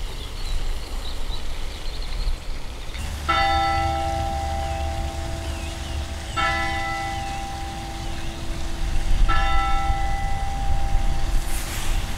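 A large bell striking three times, about three seconds apart, each stroke left ringing on into the next, as a clock bell striking the hour.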